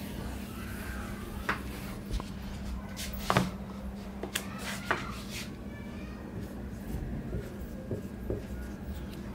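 Steady low hum with scattered clicks and knocks, the loudest about three seconds in. Near the end, a marker writes on a whiteboard.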